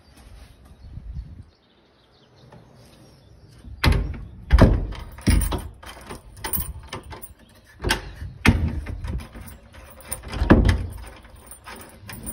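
A run of irregular knocks and thumps, heavy in the bass, starting about four seconds in. The loudest come in clusters about four to five and a half seconds in, around eight seconds, and again around ten and a half seconds.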